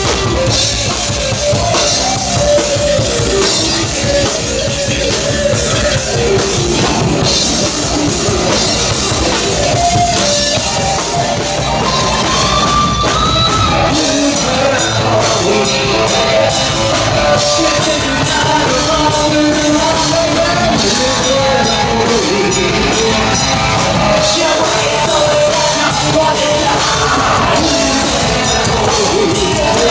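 Live loud rock band playing, with drum kit, guitar and yelled, shouted singing.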